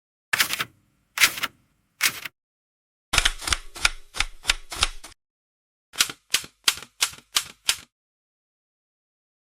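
Typing sound effect: sharp keystroke clicks in three short runs, first three strokes, then a quick run of about eight, then about six.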